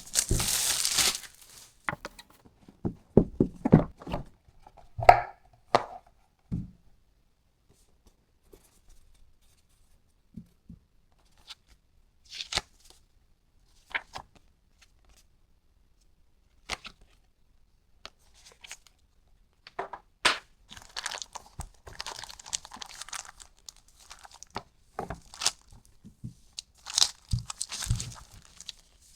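A keyboard's packaging being unboxed: paper and plastic wrapping torn and crinkled in several spells, at the start and again in the last third, between scattered knocks and thuds as the box and its contents are handled.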